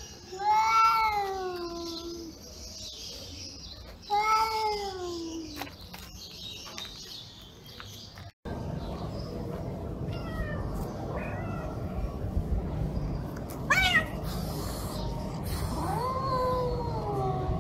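Domestic cats meowing: two long, loud meows early on, each rising then falling in pitch. After a sudden cut about 8 s in, a steady low background noise comes in, with fainter calls, a short high call that sweeps up about 14 s in, and another drawn-out, falling meow near the end.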